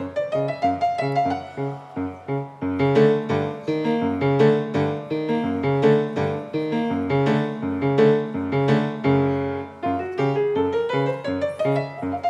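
Grand piano played solo: a busy passage of quick notes and chords over a bass line, with a rising run near the start and another near the end.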